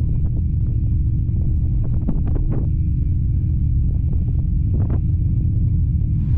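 Steady low rumble of a running vehicle, with wind noise on the microphone.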